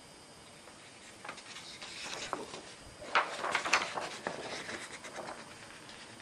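Paper being handled: irregular rustling and scraping, loudest in the middle and dying away near the end.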